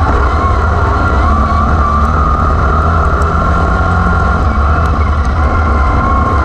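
Wingless sprint car engines racing on a dirt oval: a loud continuous engine drone whose pitch wavers up and down over a heavy low rumble.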